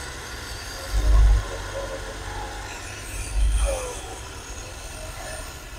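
Hand-held electric chainsaw running steadily as it cuts down through a tree log. Two low thumps, about a second in and about three and a half seconds in, are louder than the saw.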